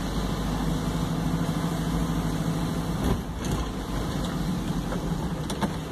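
Car engine running and road noise, heard from inside the cabin while driving slowly, with a few light clicks about three seconds in and again near the end.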